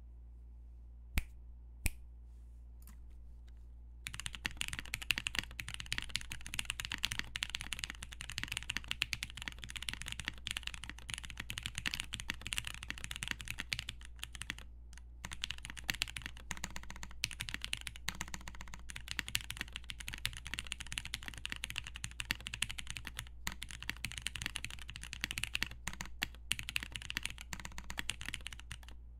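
Mechanical keyboard being typed on: a dnworksco Ryujin TKL with lubed tactile Cherry MX Brown switches on a polycarbonate plate and Cherry doubleshot keycaps. Two single key clicks in the first two seconds, then fast, continuous typing from about four seconds in, with a few brief pauses.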